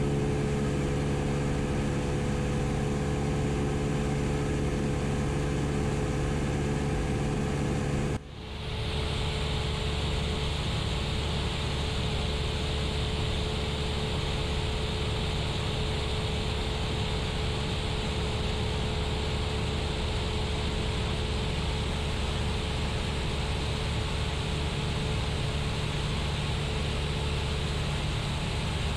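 Cessna 172's piston engine and propeller droning steadily in cruise flight, with the rush of airflow. About eight seconds in the sound drops out briefly, and after that the drone has less hum and more hiss.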